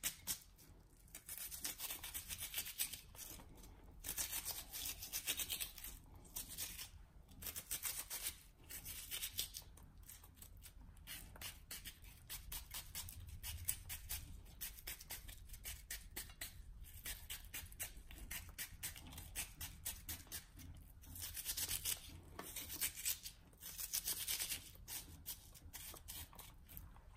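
Small kitchen knife cutting into a raw red onion held in the hand, a rapid run of crisp slicing strokes in spells with short pauses.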